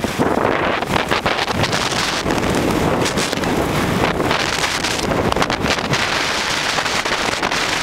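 Strong tornado winds buffeting the camera microphone: a loud, steady rush of wind with constant crackling gusts.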